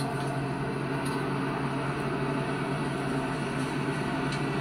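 Steady drone of a coach travelling along a road, heard from inside the passenger cabin, with a low even hum and no changes. It is heard through a television's speaker.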